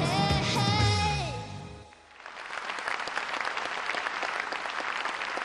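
A girl's voice holds the song's last note with vibrato over the orchestra, then slides down as the music ends about a second and a half in. The concert audience then applauds steadily.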